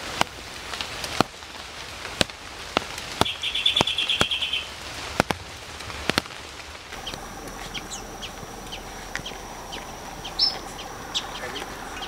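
Galapagos finches calling: a fast trill about three seconds in among sharp clicks, then a run of short, high chirps over a steady high hum.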